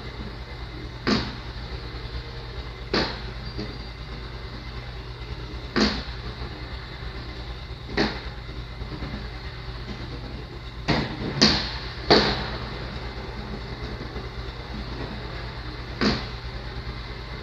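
Metal balls in a gravity-well orbit demonstration machine, giving sharp clacks every two to three seconds, with three in quick succession a little past the middle. A steady low hum runs underneath.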